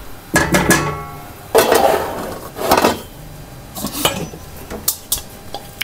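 A spoon knocks against a metal cooking pot with a brief ringing clank, then scrapes and stirs as mashed potato is mixed into a creamy sauce, followed by a few lighter knocks.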